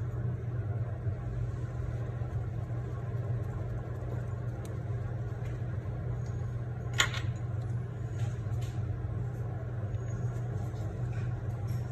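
Steady low hum under a faint noise bed, with one sharp click about seven seconds in and a few fainter ticks.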